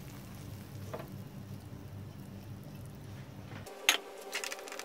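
Quiet sounds of thick coconut burfi mixture being tipped and pushed from a nonstick pan into a steel tray, over a low steady hum. The hum stops abruptly near the end, followed by one sharp knock of utensil or pan against the tray.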